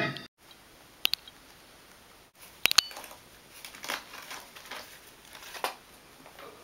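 Faint crinkling and rustling of a cardboard egg box still wrapped in plastic as a rat noses at it, with a few sharp clicks. A moment of music cuts off right at the start.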